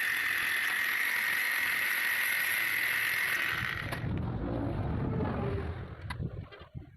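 A power tool working metal runs steadily for about three and a half seconds, then stops. Quieter handling noise and a couple of sharp clicks follow.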